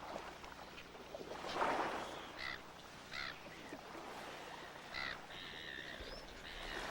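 Faint bird calls: a few short calls, then one longer held call about five seconds in, with a soft rush of noise about a second and a half in.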